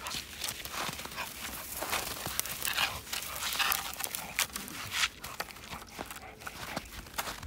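Snow crunching and scuffling as a miniature bull terrier plunges about and tugs at a heavy log lying in the snow, with the dog panting. The crunches come irregularly and close together.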